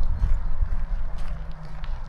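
A person's walking footsteps on a path, a step about every half second, over a steady low rumble.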